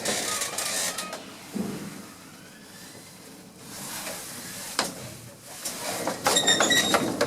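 Old gated passenger lift travelling down, with mechanical running noise and occasional clunks. A denser metallic rattle and clatter comes near the end.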